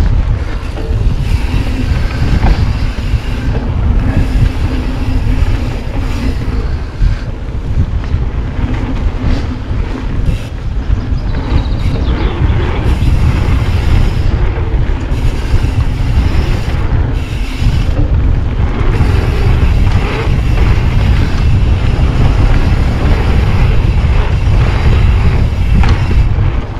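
Mountain bike descending a dirt flow trail: wind buffeting the action-camera microphone as a steady low rumble, with tyres rolling on the dirt and the bike rattling over bumps.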